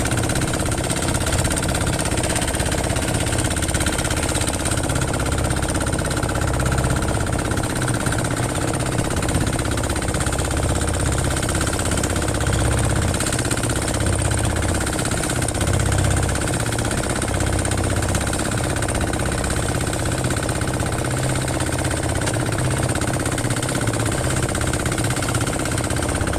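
An engine running steadily with a continuous low rumble, holding an even speed.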